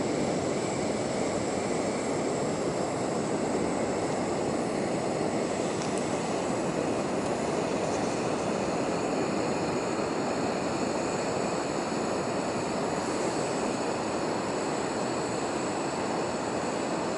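Pressurised paraffin burner of a Tilley lamp running, giving a steady, even roar.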